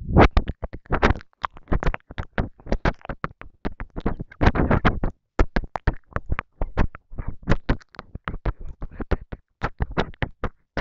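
Close-miked ASMR mouth sounds: a dense, irregular run of wet saliva clicks and smacks, broken by a few short breathy stretches of inaudible whispering.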